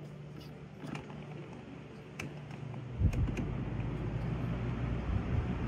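Commercial Cool fan being switched on: a few sharp clicks, then about three seconds in the motor starts and the fan runs with a steady low rumble of moving air, over the hum of other fans already running.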